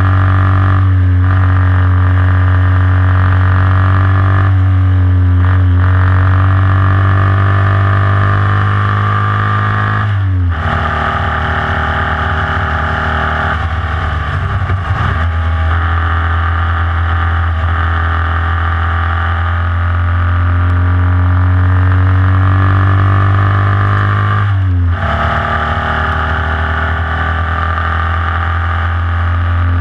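Formula Vee's air-cooled Volkswagen flat-four engine running hard at steady high revs, heard from on board the car. About ten seconds in the pitch drops suddenly as the throttle comes off, slides lower a few seconds later, then holds steady again; a second sudden drop comes near the end.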